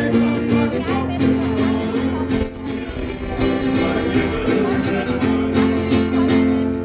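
Guitar music with strummed chords, playing steadily.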